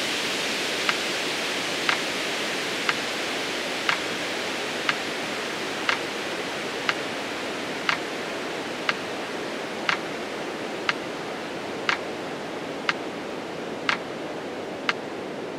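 Metronome ticking once a second, about fifteen sharp ticks, counting off the seconds of a slow 20-count exhale. Under it runs a steady soft hiss that fades slightly.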